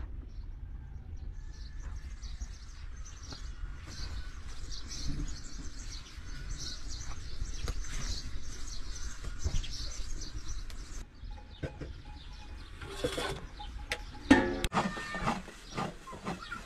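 Outdoor ambience: small birds chirping over a low steady rumble. Near the end there is a brief pitched call and a single sharp knock.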